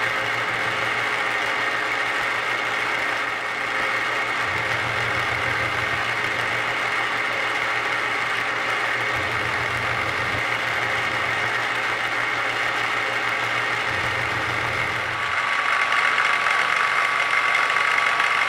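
Milling machine cutting steel with a 3/8-inch carbide end mill, a steady mechanical whine of the spindle and the cut, as it mills the triangular teeth of a woodworking float one pass at a time. The sound grows louder about fifteen seconds in.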